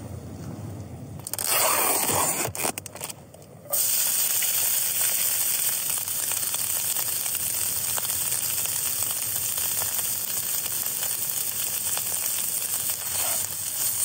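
Plant-based kebab strips sizzling in a hot non-stick frying pan on a camping gas stove. The sizzle starts about a second in, breaks off briefly, then carries on steadily.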